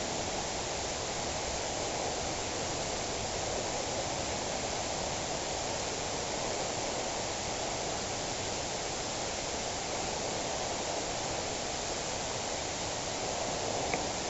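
A steady, even rushing noise with no distinct events, and a faint click near the end.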